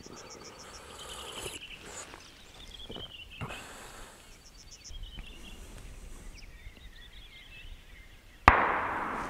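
Songbirds singing: runs of high repeated notes and descending trills. About 8.5 seconds in, a single shotgun shot cracks out sharply and rolls on in a long echo.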